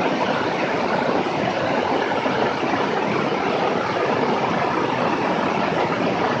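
Steady rush of airflow and engine noise from a Beechcraft S35 Bonanza in flight, picked up by a camera mounted on the outside of the plane, with no changes in level.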